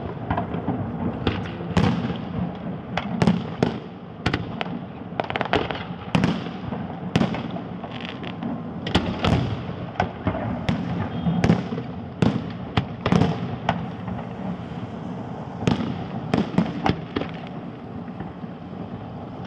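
Fireworks display: aerial shells bursting in an irregular string of sharp bangs, about two a second, over a steady low rumble.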